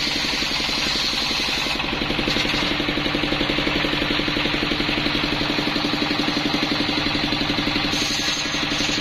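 Single-cylinder Yanmar diesel engine running steadily with a fast, even knock, driving a circular saw blade. The blade is ripping lengthwise through a split coconut palm trunk with a constant hiss.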